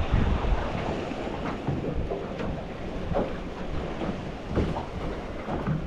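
Wind buffeting the microphone, with small waves lapping and slapping irregularly against the hull of a small drifting boat.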